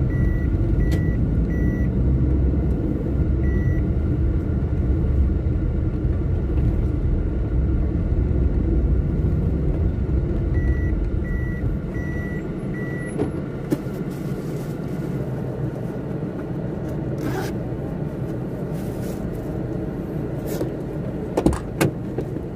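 Vehicle engine running while a high reversing beep repeats in short runs, about two beeps a second, which stop about halfway through. The low engine rumble then drops away, and a few sharp knocks follow near the end.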